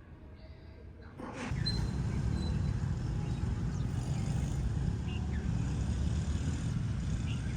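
Outdoor street-market ambience: a steady rumble of traffic with voices mixed in, cutting in suddenly about a second in after a quieter stretch.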